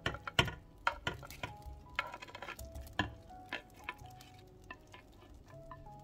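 Baked meatballs scraped off a glass baking dish with a spatula and dropped into a pan of thick sauce: a run of sharp knocks and wet splats over the first three and a half seconds, then quieter. Soft background music underneath.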